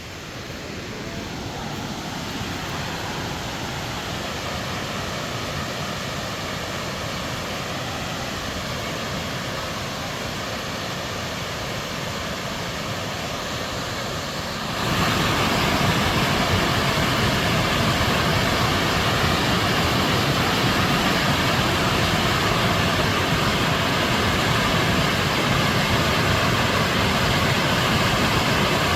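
Waterfall rushing in a steady roar of falling water, stepping suddenly louder about halfway through.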